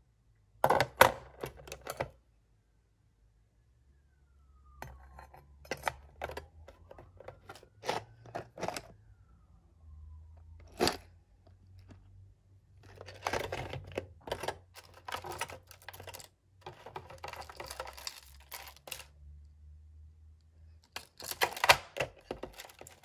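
Metal bangles clicking and clinking against each other and a clear tray as they are picked up and set down, with the handling of a plastic container of bangles. Irregular clusters of small knocks with short quiet gaps between them.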